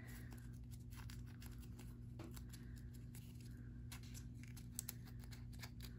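Faint scattered clicks and scratches of fingers picking at a die-cut foam and paper shaker piece to pop it free, over a low steady hum.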